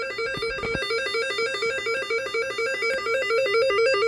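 Electronic alert tone from weather radio alerting equipment: a buzzy beep warbling rapidly between two pitches in a steady repeating pattern.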